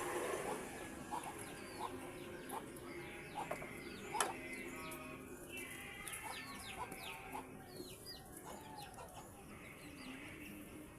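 Scattered sharp clicks and knocks of a metal pry tool working a motorcycle tire bead over the rim, the loudest about four seconds in, with animal calls in the background throughout.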